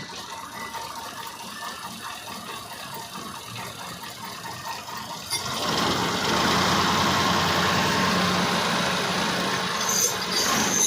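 Engine running, growing clearly louder and fuller about halfway through, then holding steady with a low hum.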